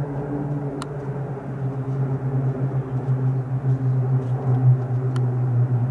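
Three single-engine propeller aircraft flying overhead in formation, a steady low engine-and-propeller drone. Two short clicks cut through it, about a second in and again near the end.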